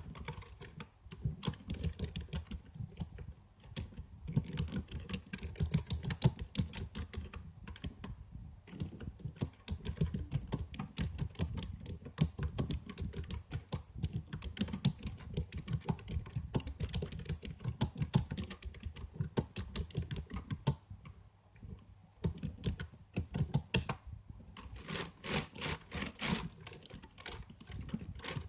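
Typing on a computer keyboard: a fast, continuous patter of keystrokes with a couple of brief pauses and a run of louder strokes near the end.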